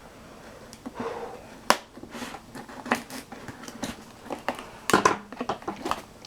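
A blade cutting through packing tape on a cardboard box, with scattered sharp clicks and scrapes of the cardboard. There are louder knocks about a second and a half in and again near five seconds.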